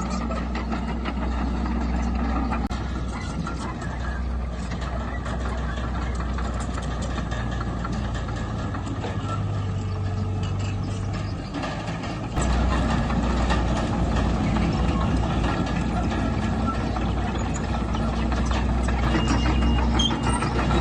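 Diesel engine of heavy earthmoving machinery running steadily. Its note changes about seven seconds in, and it comes back louder about twelve seconds in.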